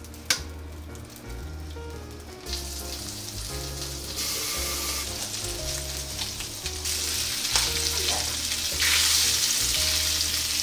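Filefish fillets sizzling skin side down in melted butter in a frying pan. The sizzle grows louder in steps as more pieces go into the pan, after a sharp tap just after the start. Quiet background music plays underneath.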